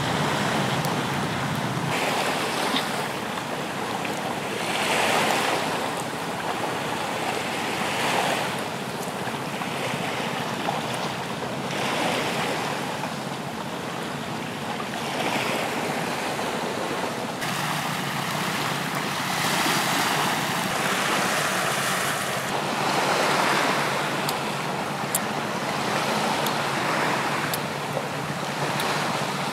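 Sea surf washing onto a sandy beach, a steady rush that swells and fades every few seconds as the waves come in.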